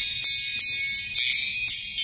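Music playing through a Pioneer WT-A500 horn tweeter on its own: only the treble comes through, mostly hi-hat and cymbal strokes with a regular beat, and almost no bass or midrange.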